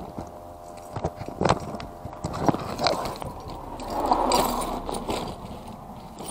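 Handling sounds from rummaging in a cloth bag and lifting out a ring of keys: a few sharp clicks and knocks, then a burst of rustling and key jingling about four seconds in.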